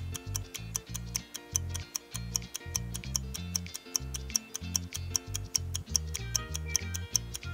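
Countdown-timer ticking, fast and even at about four to five ticks a second, over background music with a repeating bass line, marking the seconds left to answer.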